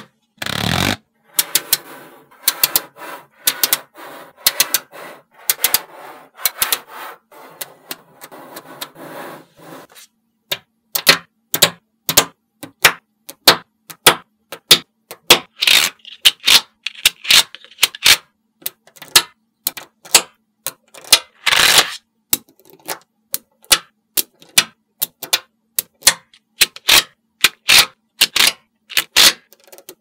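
Small magnetic balls clicking and snapping against each other as layers of them are pressed, shifted and split apart. A continuous rattling scrape under the clicks for about the first ten seconds, then sharp separate clicks, some in quick runs.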